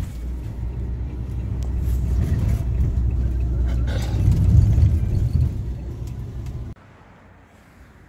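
Low engine and road rumble inside a moving shuttle bus, swelling a little about halfway through, then cutting off abruptly near the end.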